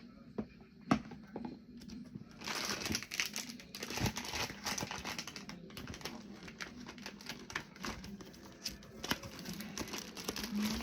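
Packaging crinkling and rustling as craft items are pulled out of a gift bag, with a few sharp clicks at first and then a dense run of crackling from about two seconds in.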